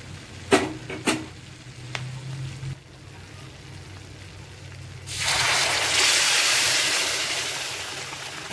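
Water poured into a pan of masala paste fried in hot oil, setting off a loud sizzle about five seconds in that slowly dies away. Two sharp knocks come in the first second or so.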